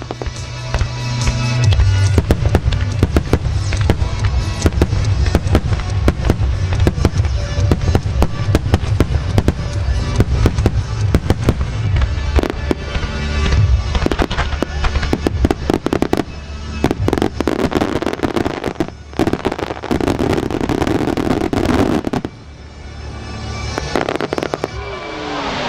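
Starmine fireworks by Marugo, a rapid-fire barrage of aerial shells bursting in dense volleys of sharp reports and crackle, over music played along with the show. The barrage eases briefly near the end.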